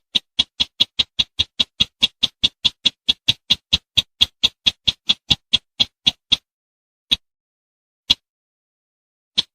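Bird call of the bush bird known in Indonesian hunting as the sintar semak, used as a hunting lure: a fast series of short, sharp, high clicking notes, about four a second, that stops about six seconds in, followed by three single notes spaced well apart.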